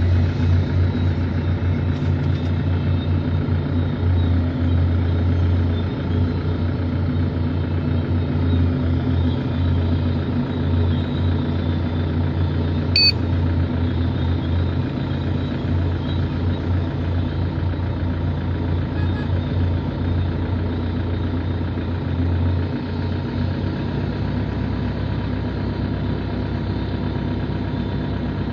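Heavy diesel engines of large earthmoving machines, a big shovel excavator and a crawler bulldozer, running steadily under load with a deep continuous drone. Near the end the strongest low hum drops away and the engine note settles lower. There is one brief high click about halfway through.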